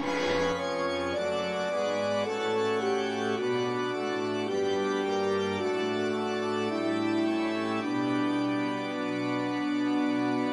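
Background music: slow, held keyboard chords changing about once a second.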